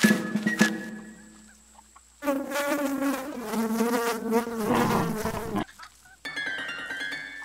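Cartoon sound effect of a housefly buzzing: a loud, wavering buzz that bends up and down in pitch for about three seconds in the middle, after the music fades out at the start.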